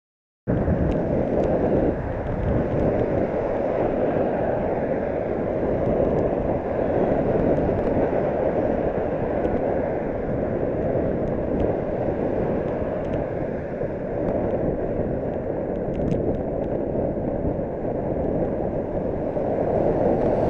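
Steady wind and road noise on a bicycle-mounted camera's microphone while riding in traffic, cutting in suddenly about half a second in, with a few faint clicks.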